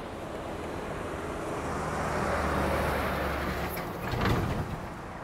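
A vehicle passing along a rain-wet street: a low engine hum and tyre hiss swell to a peak about halfway through, then fade. A short, louder rush comes about four seconds in.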